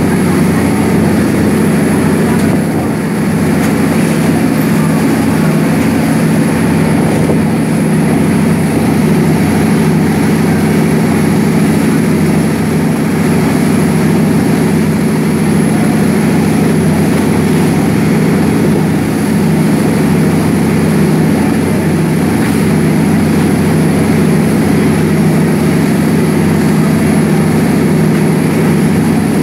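Amazon riverboat's diesel engine running hard at full power, a loud steady drone, with water rushing along the hull.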